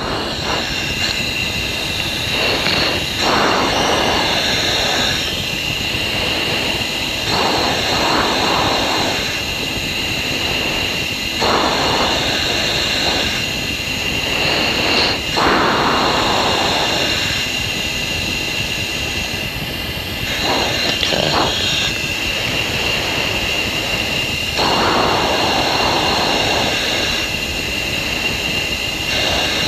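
F-16 cockpit noise on final approach to landing: the jet engine and airflow make a steady hiss with a constant high tone. Swells of rushing noise come every four or five seconds, the pilot breathing into the oxygen-mask microphone.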